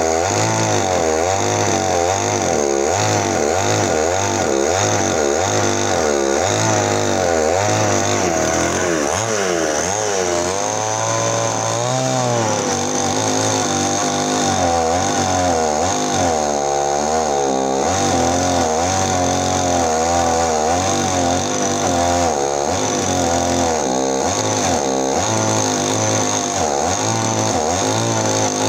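Petrol chainsaw running under load, cutting into areca palm stumps, its engine pitch rising and dropping over and over as the chain bites and frees.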